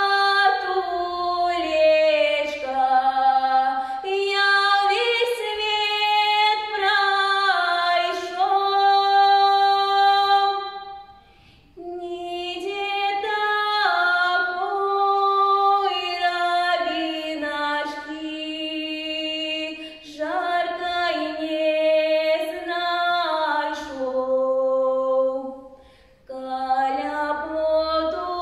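A young woman singing a Belarusian folk song solo and unaccompanied, with long held notes. She breaks twice for breath, about halfway through and near the end.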